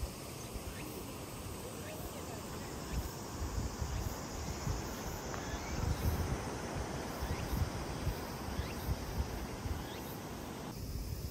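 Wind buffeting the microphone in irregular gusts of low rumble, with a faint insect buzz behind it.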